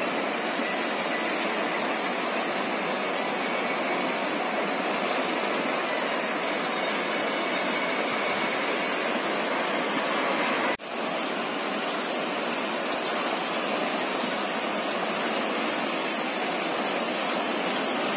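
Rushing water of a swollen, fast-flowing flooded river running over rapids, a steady hiss-and-rush of current. It cuts out for an instant a little past the middle.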